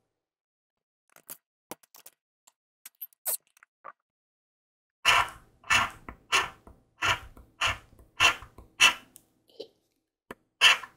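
Speetto instant lottery ticket being scratched: after a few faint taps and clicks, rhythmic scraping strokes start about five seconds in, about two a second.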